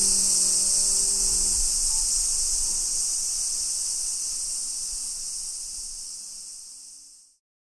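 Insect chorus: a steady high-pitched buzz that slowly fades and then cuts off near the end. Low sustained tones die away in the first second.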